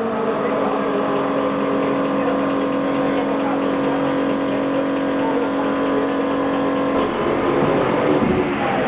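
McLaren MP4-12C GT3's twin-turbo V8 running at a steady, held engine speed for about seven seconds, then the note breaks off and shifts in pitch near the end.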